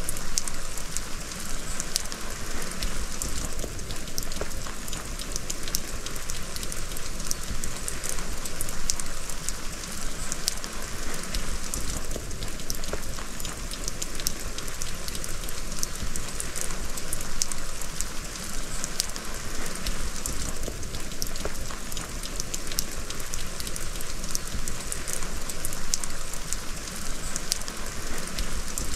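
Rain falling on an ice-crusted plastic tarp: a steady hiss dotted with many small sharp taps of drops striking the sheet.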